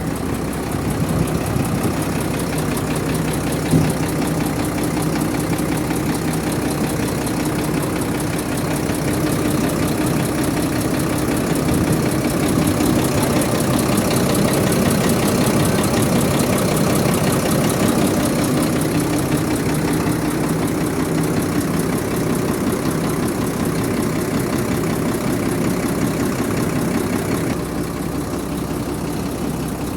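Foton Auman cargo truck's diesel engine idling steadily, running on freshly changed oil.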